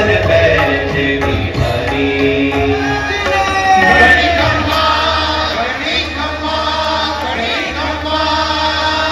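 Music with singing: a voice holding long, wavering notes over a steady low accompaniment.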